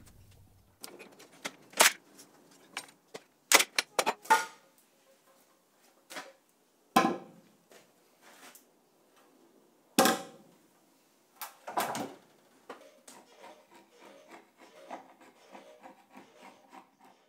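Hardwood boards and pipe clamps being handled, with scattered knocks and clunks of wood. In the last few seconds a metal scraper rasps in short repeated strokes, lifting dried glue beads off a board.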